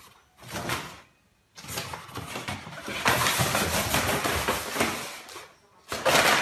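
Paper bag crinkling and scraping across a wooden floor as a cat inside it scoots around, in bursts: a short one near the start, a long loud stretch from about one and a half seconds in, and another short burst near the end.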